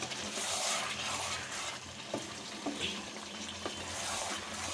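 Mutton and potato curry sizzling in the pan as it is stirred, with a few light knocks of the spoon against the pot. The sizzle is loudest for the first second and a half, then eases.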